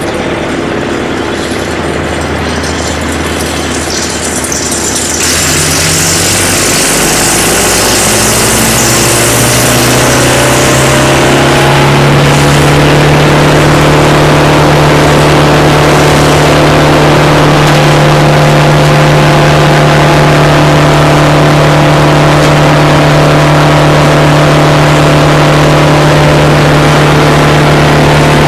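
Morbark Blizzard 12 drum chipper's Caterpillar diesel engine, clutched in to the drum, being throttled up: about five seconds in the engine speed climbs over several seconds, then holds steady at high revs with the drum spinning.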